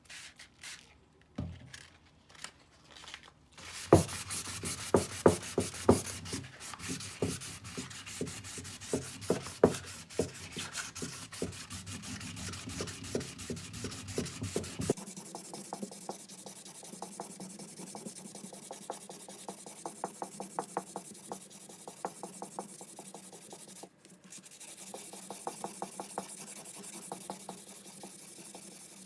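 Hand sanding on a hatchet: quick, repeated back-and-forth scratching strokes of sandpaper, preceded by a few light clicks.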